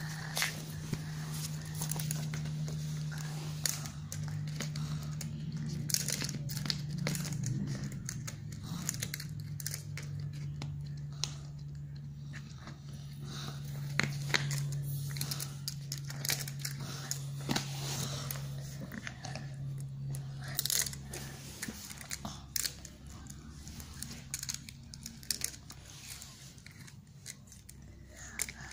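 A Bichon Frisé chewing and gnawing on a plastic baby pacifier: irregular clicks and crunches of teeth on plastic. A steady low hum runs underneath and stops about three quarters of the way through.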